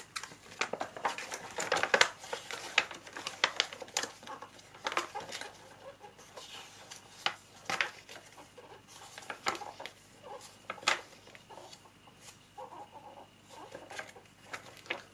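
Paper rustling and pages turning as a printed instruction manual is unfolded and leafed through by hand: many small, irregular crisp rustles and flicks, busier in the first half.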